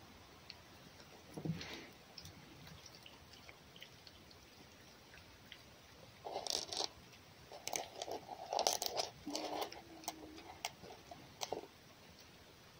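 Red fox chewing and crunching food, mostly in a run of short crackly bursts and clicks in the second half.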